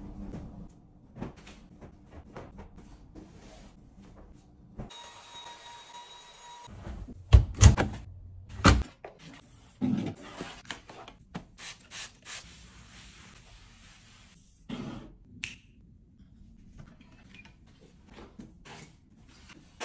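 Tidying-up sounds: scattered knocks and thumps of household objects being picked up and set down, with the loudest thumps about seven to nine seconds in.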